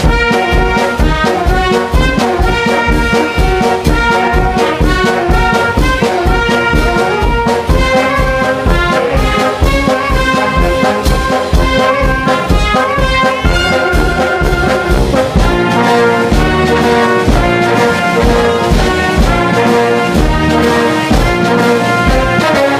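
Brass band music: trumpets and trombones playing over a steady bass-drum beat of about two beats a second.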